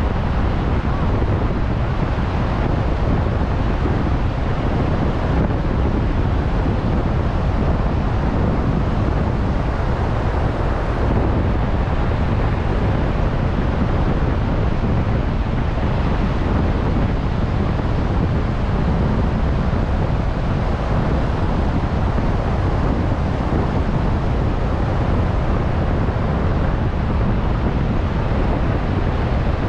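Strong wind buffeting the microphone in a steady low rumble, with ocean surf washing beneath it.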